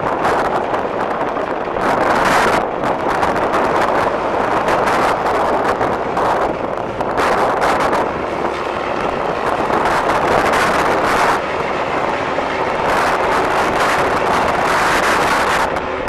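Strong wind buffeting the microphone in gusts, over the steady running of the John Deere 310SE backhoe's 4.5 L turbo diesel engine.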